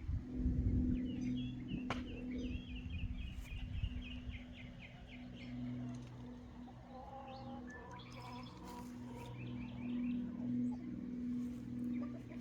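Birds chirping: a fast trill of repeated notes, then a later run of short chirps, over a steady low hum. There is one sharp click about two seconds in.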